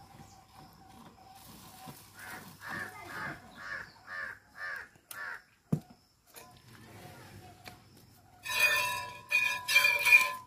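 Milk squirting in rhythmic strokes into a steel pail during hand milking of a cow, loud from about two seconds before the end, the pail ringing under the jets. Earlier comes a run of about seven short, evenly spaced sounds and a single sharp click.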